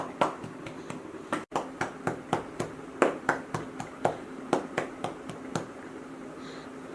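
A hand patting a baby's back to bring up wind, a steady run of light pats about two to three a second.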